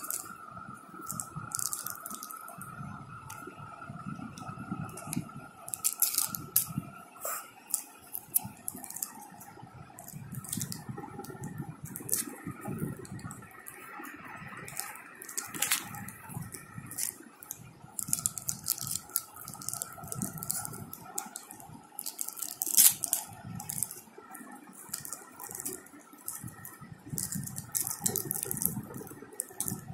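Cellophane wrappers on small packaged stationery items crinkling and rustling as they are handled, in irregular scattered crackles, over a faint steady hum.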